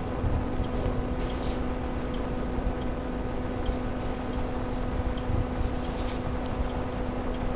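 Microlight trike's engine and propeller droning steadily at constant cruise pitch in flight, with wind rushing over the open cockpit's microphone.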